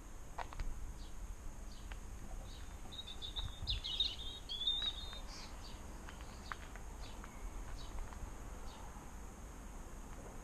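A bird chirping in a short flurry about three to five seconds in, over steady low outdoor background noise with scattered faint ticks.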